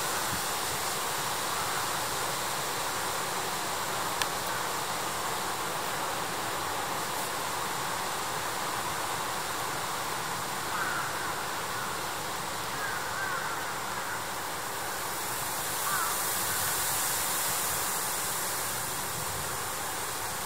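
Steady outdoor background noise, a rushing hiss with no clear source, with a sharp click about four seconds in and a few faint chirps in the second half.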